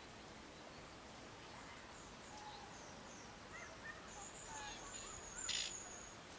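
Faint songbird calls over a soft outdoor hush. A run of short, high, falling chirps about two seconds in is followed by small twittering notes and a long, thin, high whistle. A brief buzzy note near the end is the loudest sound.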